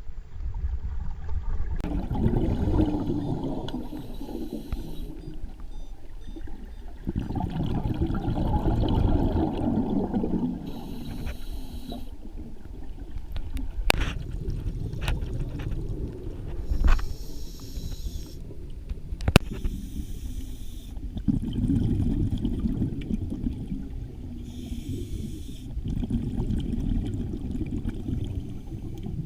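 Scuba diver breathing through a regulator underwater: short hissing inhalations alternate with longer low rumbling bursts of exhaled bubbles, every few seconds. There are a few sharp clicks in the middle.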